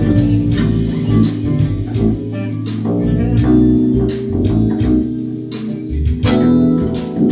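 Electric bass guitar playing plucked notes with a heavy low end, in a loose jam with other stringed playing.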